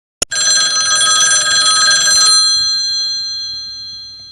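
Old-style telephone bell ringing: a sharp click, then a fast-rattling metallic ring for about two seconds, after which the bell rings on and fades away.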